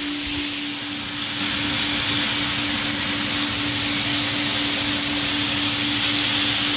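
Puffed-rice (muri) roasting machine running: a steady motor hum from its air-blower motors under an even, continuous hiss and rush as freshly puffed rice pours out into a bamboo basket.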